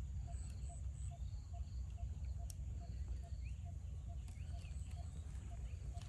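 Outdoor nature ambience: a steady low rumble with birds chirping and a short animal call repeating evenly about two or three times a second.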